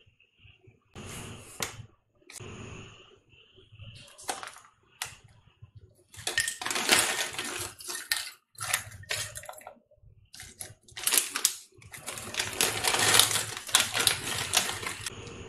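Plastic chip packet crinkling as ridged potato chips are shaken out of it and clatter onto a ceramic plate, in several bursts, the longest around the middle and near the end.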